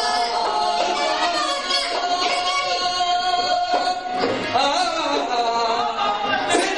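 Qawwali music: singing over instrumental accompaniment, with a held note running steadily underneath.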